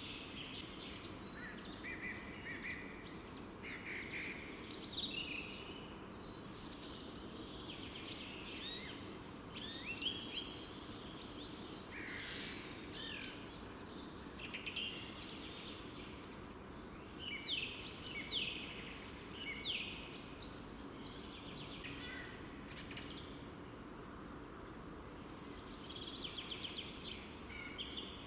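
Songbirds singing: short, varied, high chirping phrases following one another every second or so, over a steady low background rumble.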